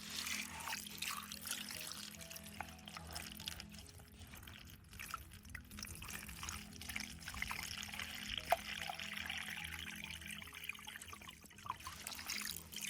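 Water trickling and pouring while drinking water is collected for filtering, under background music with sustained low notes.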